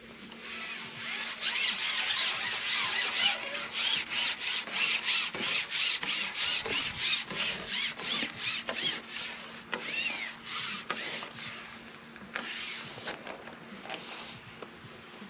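Carbon fishing pole being shipped out hand over hand: its sections rub and squeak as they slide through the angler's hands, in quick rasping strokes about two a second. The strokes slow and fade in the last few seconds.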